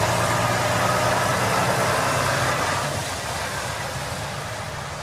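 Truck engine sound effect: a steady low engine rumble under a loud hiss, easing off slightly after about three seconds.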